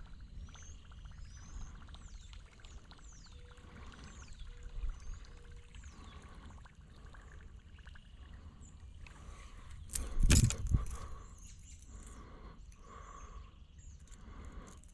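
Small birds chirping repeatedly over a steady low outdoor rumble, with one brief loud noise about ten seconds in.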